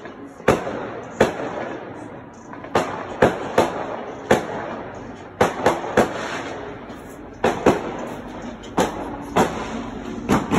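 Fireworks bursting: an irregular series of about fifteen sharp bangs, one to two a second, some in quick pairs and triplets, over a continuous rumbling din.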